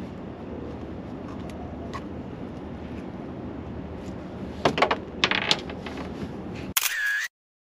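Steady wind and water noise around an open boat, with a quick run of sharp clicks and rattles about halfway through as a freshly caught red drum is handled and unhooked. Near the end a short loud burst, then the sound cuts off abruptly.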